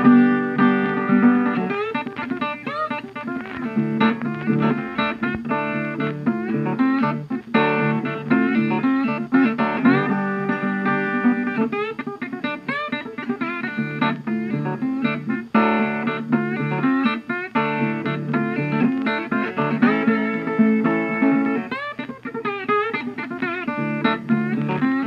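Instrumental background music on guitar, a continuous run of plucked notes.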